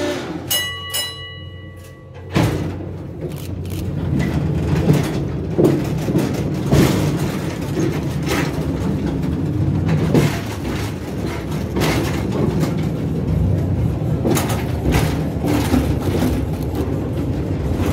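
Small mine-train cars rumbling along their track, with many knocks and rattles. A brief ringing tone sounds at the very start, before the rumble comes in about two seconds in.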